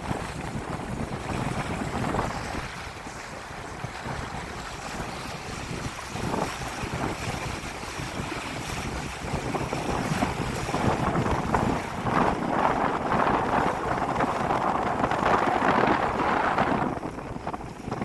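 Wind buffeting the microphone on a moving boat, with water rushing past the hull; it grows louder in the second half and falls off near the end.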